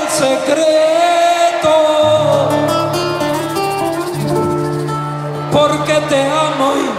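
An instrumental passage of a Mexican Latin song: acoustic guitar and a melody line over sustained bass notes, with no lyrics sung.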